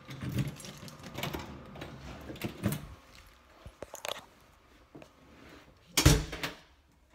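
Handling noise of a handheld phone camera: rustling and light knocks, then one loud, deep thump about six seconds in.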